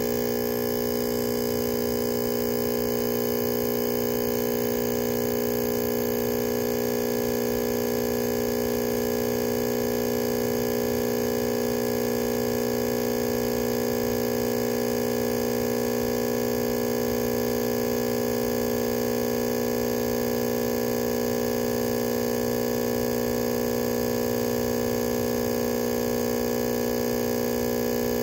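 Steady electrical hum with many overtones, unchanging throughout.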